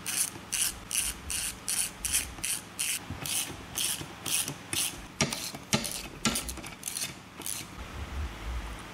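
Socket ratchet clicking in steady back-and-forth strokes, about two or three a second, as bolts are backed out. There are a few louder knocks partway through, and the clicking stops near the end.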